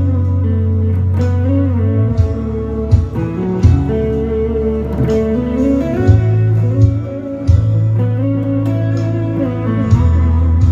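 Electric guitar with a Fender tone playing a melodic line of single notes and gliding bends. It is backed by sustained low bass notes and a steady beat of sharp percussive hits.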